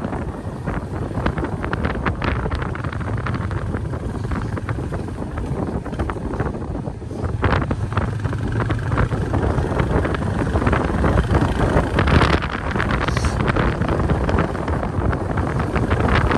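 Wind buffeting the microphone on a moving motorcycle, over the low running of its engine and tyres on the road. It gets louder about halfway through.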